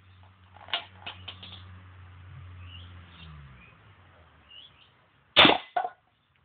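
A homemade pneumatic marble cannon fires with a sudden sharp blast of released air. About half a second later comes a shorter knock as the tin can target is struck and knocked off its stump.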